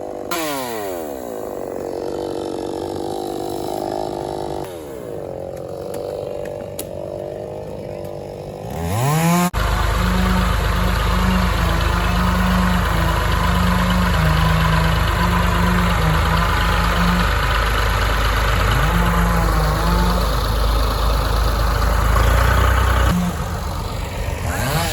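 A chainsaw winds down from a cut and idles for several seconds, revving up briefly near the nine-second mark. Then a loud, low engine, likely a loading vehicle's diesel, runs steadily with its speed stepping up and down as it works.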